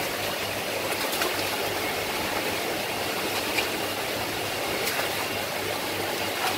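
Steady rush of aerated water bubbling and circulating in a live-crab holding tank, with a low steady hum underneath.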